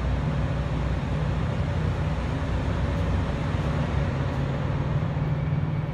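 Steady low machine drone with a level hum underneath, unchanging throughout.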